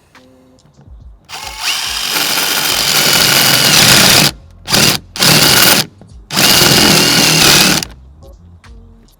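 Cordless drill boring a large hole in plywood with a spade bit: a high motor whine over the grinding of the cut, in four runs, the first about three seconds long, stopping and restarting in between.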